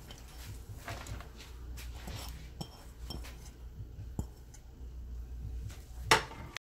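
A ceramic bowl and a stainless steel serving bowl clinking and tapping as mashed dried-fish bhorta is scraped out by hand, with a sharp louder clink about six seconds in before the sound cuts off.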